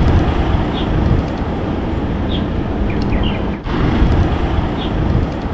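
Wind buffeting the microphone and road noise of a moving bicycle, a loud, steady rumble, with a few short high chirps now and then.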